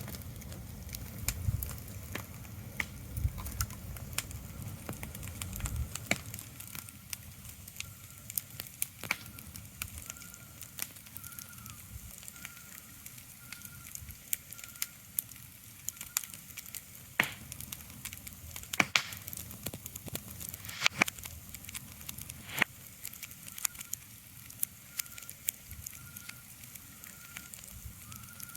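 Irregular crackling and sharp pops over a soft hiss, with a low rumble that stops about six seconds in. A faint high chirp repeats at a steady pace through the latter part.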